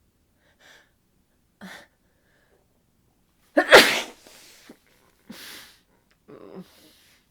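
A woman with a head cold sneezes once, loudly, about three and a half seconds in. It is led by two short catching breaths. Two shorter breathy sounds follow.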